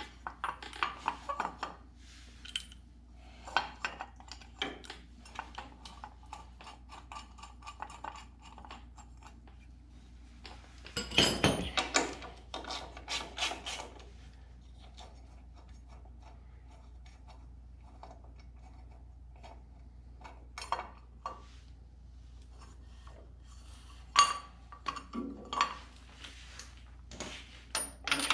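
Socket ratchet clicking in short runs and metal tools clinking as spark plugs are unscrewed from an old tractor engine, to check the cylinders for fuel before cranking. There is a louder clatter of tools near the middle, and the ratchet clicks again near the end.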